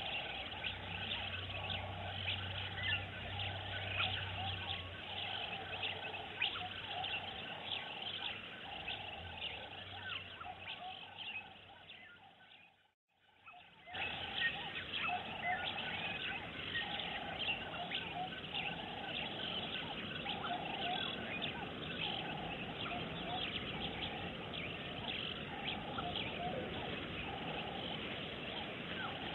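A dense chorus of wild birds chirping and calling, many short chirps over repeated lower calls. It fades to silence about halfway through, then returns.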